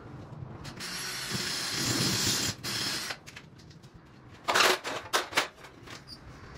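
Cordless drill running for about two seconds, then briefly again, followed by a cluster of short, sharp, loud clicks about four and a half seconds in.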